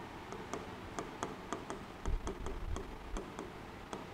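Felt-tip marker writing on a whiteboard: a quick, uneven run of small ticks and taps as the strokes are made, with a faint low bump about halfway through.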